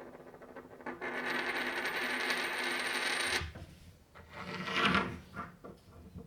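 A coin spun by hand on a hard surface: a steady metallic whirring rattle that cuts off suddenly about three and a half seconds in, followed by a shorter spin that swells and dies away.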